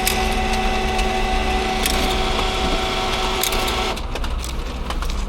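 A steady machine hum with several held tones and scattered clicks that cuts off suddenly about four seconds in.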